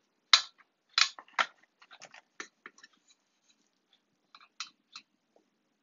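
A utensil scraping and tapping against a metal pie pan as a slice of apple pie is cut and lifted out: three sharp clicks in the first second and a half, then lighter ticks and scrapes, and a few more clicks near the end.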